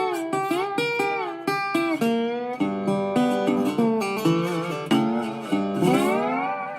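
Music: a plucked guitar-family instrument plays a quick melody of picked notes that slide in pitch between them. It ends on a long upward slide near the end.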